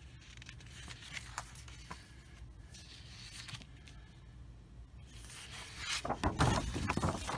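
Strat-O-Matic card sheets rustling softly as they are handled, with a few light ticks. About five seconds in comes louder crinkling as a sheet is lifted and flipped over.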